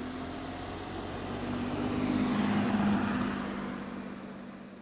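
A small hatchback car driving past on an asphalt road, its engine and tyres growing louder to a peak about halfway through, then fading as it moves away, the engine note dropping slightly in pitch as it goes by.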